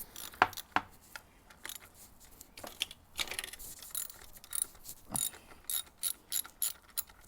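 Socket ratchet wrench clicking in short runs as 12 mm bolts on the pit bike are turned loose, with one sharper click about half a second in and a quicker run of clicks near the end.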